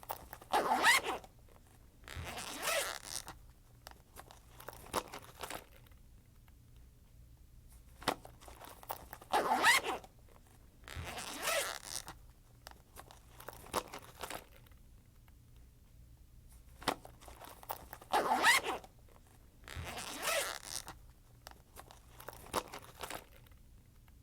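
Backpack zipper being run back and forth: short rasping zips of up to about a second each, coming in three rounds of three or four pulls, each round led by a light click.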